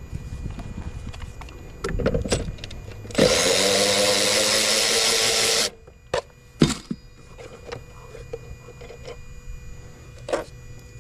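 A handheld power driver runs in one burst of about two and a half seconds near the middle, rising slightly in pitch as it spins up, while working on a car's interior. Scattered clicks and knocks of tools and parts come before and after it.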